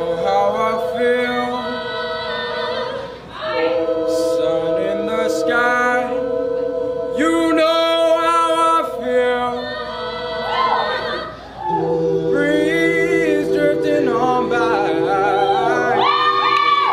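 An a cappella vocal group singing: a lead voice bends and moves over steady held backing harmonies, pausing briefly twice.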